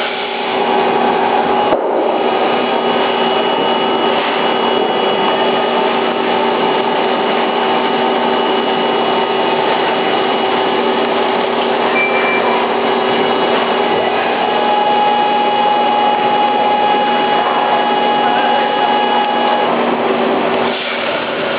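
Johnford SL-500 CNC slant-bed lathe machining: a steady cutting and spindle whine with several held tones. There is a brief break about two seconds in and a dip near the end.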